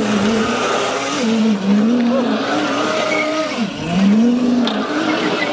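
Solar-powered electric go-kart driving and drifting on asphalt: a pitched whine that keeps wavering up and down, dipping and climbing again as the kart slows and speeds up, with tyre squeal over the scrub of the small wheels.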